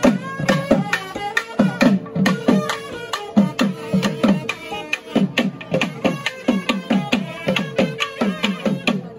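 Traditional South Indian-style festival music: rapid drum strokes whose pitch drops on each hit, over a held drone note and a melody line.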